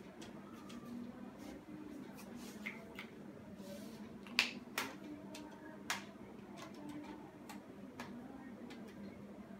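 Sporadic sharp taps and clicks of writing on a board over faint room noise, the loudest about halfway through.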